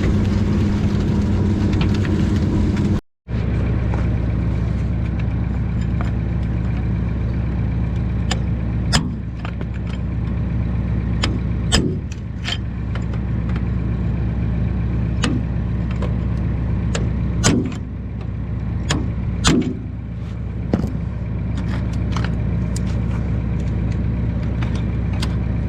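Tractor engine idling steadily, with scattered sharp metallic clinks and taps from work on the spreader's chain. The engine sound cuts out briefly about three seconds in.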